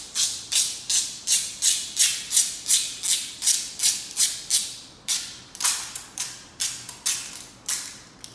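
Rhythmic rasping strokes, about three a second, like something being rubbed or scraped back and forth; they pause briefly about halfway, then come slower and weaker.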